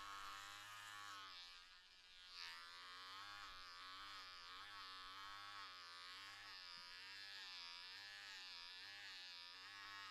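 Cordless electric hair clippers with a comb guard running through short hair, a faint buzz whose pitch dips and recovers with each stroke. The sound drops away briefly about two seconds in.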